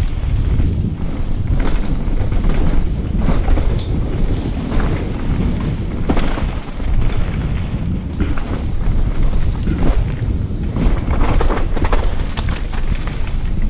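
Wind rumbling on an action camera's microphone during a mountain-bike descent, with frequent knocks and rattles from the bike over rough trail.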